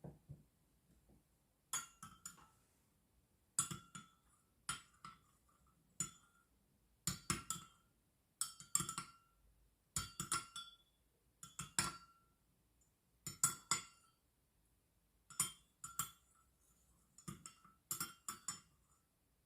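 A utensil clinking against a glass dish in short clusters of two to four taps, repeated every second or two with a brief ring after each, as when mixing food in a bowl.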